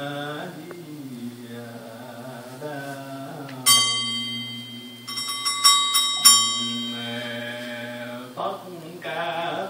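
Buddhist monk chanting a sutra into a microphone, with a small ritual bell struck once about four seconds in and then three more times, each strike ringing on under the chant.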